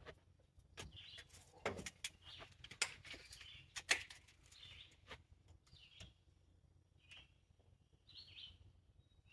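A bird calling over and over, a short high call about once a second. A few sharp clicks and knocks, the loudest sounds here, come in the first four seconds.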